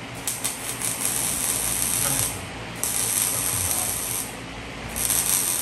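MIG welder laying weld on steel frame boxes: crackling, sizzling arc in about three bursts of one and a half to two seconds each, with short pauses between.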